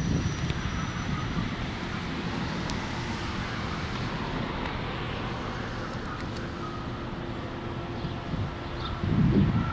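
Diesel engine of a passenger train running with a steady rumble. A low rumble swells briefly near the end.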